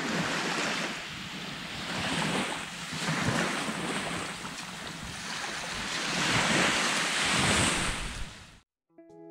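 Wind rushing across the microphone over small waves washing onto a sandy beach: a steady noise that swells and eases every second or two, and cuts off suddenly near the end.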